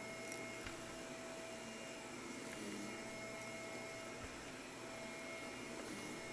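Shark vacuum cleaner running steadily on carpet: a constant motor hum and whine, with a couple of faint ticks near the start.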